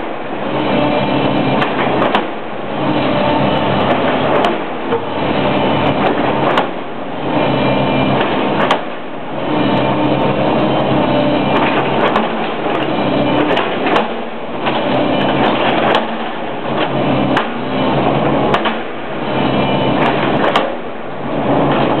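A tracked excavator's diesel engine runs steadily while its bucket pounds down again and again on wooden shoring timbers around a pit, giving repeated heavy knocks over the engine.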